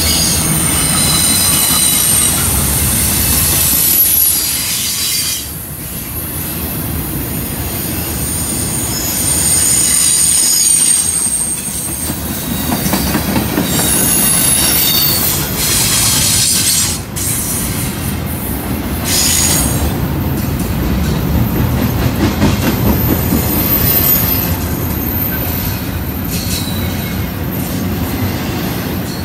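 Double-stack intermodal freight train passing close at speed: a steady heavy rumble of container well cars on the rails, with high-pitched wheel squeal coming and going.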